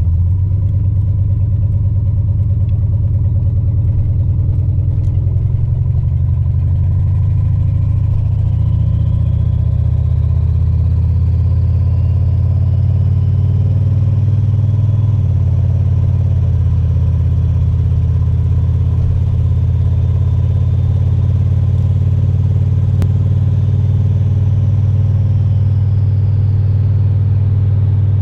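LQ4 6.0-litre V8 in a swapped Ford Ranger pickup running steadily at a cruise, a constant low drone, with a faint high whine that rises and falls through the middle. The engine is running with a light misfire that the owner later traced to a split number 8 spark plug wire.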